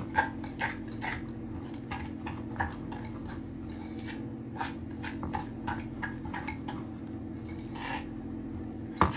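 Stiff coffee buttercream beaten by hand with a metal utensil in a glass bowl: irregular clinks and scrapes against the glass, a few a second, with a louder knock near the end, over a steady low hum.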